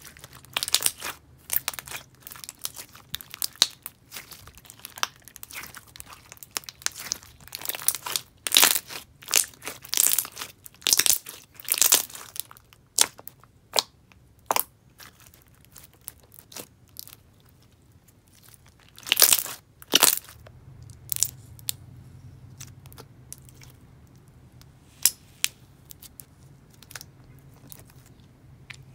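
Clear glue-based slime with jelly cubes, fishbowl beads and pom-poms being squished and stretched by hand, giving irregular crunchy clicks and pops. The loudest runs of pops come about a third of the way in and again about two-thirds through, and after that the sounds are sparser and quieter.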